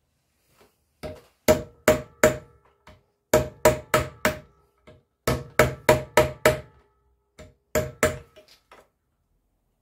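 Hammer striking a punch held against the rim of an ABS pump motor's metal housing, in short runs of two to five sharp blows about three a second, each with a brief metallic ring; the blows are securing the replacement motor onto the ABS modulator.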